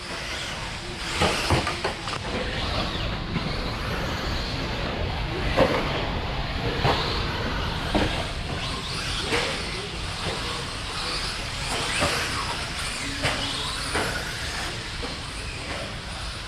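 Electric 1/10-scale stadium trucks racing on an off-road track: a steady din of motors and tyres, broken about nine times by sharp clacks and knocks of the trucks landing and hitting.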